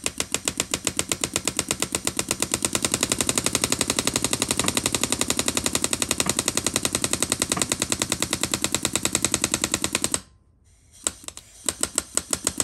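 A power hammering tool drives out a pin of the motorcycle's cam chain with a rapid, even train of sharp metallic blows, about ten a second. It stops about ten seconds in and starts again about a second later.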